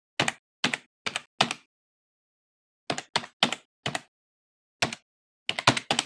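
Computer keyboard keystrokes typed one at a time: about a dozen sharp clicks, in a run of four, another run of four, a single one, then a quick burst of several near the end.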